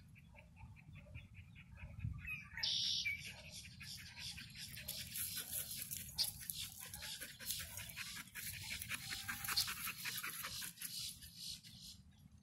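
Animal calls: a run of evenly spaced high pips for the first two seconds or so, then from about three seconds in a dense chorus of rapid high chattering and clicking that thins out near the end, over a low steady rumble.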